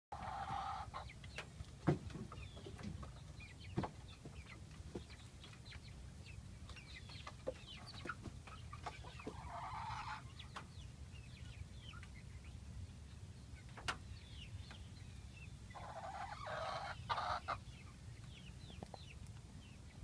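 Chickens clucking, with short calls scattered throughout and three louder bursts of calling: right at the start, about halfway, and near the end. A few sharp knocks sound among them, the loudest about two seconds in.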